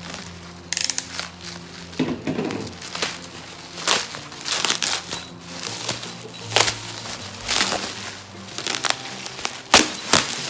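Plastic bubble wrap crinkling and rustling in irregular bursts as it is slit with a utility knife and pulled open by hand around a cardboard box, with a sharp crackle near the end. Background music plays steadily underneath.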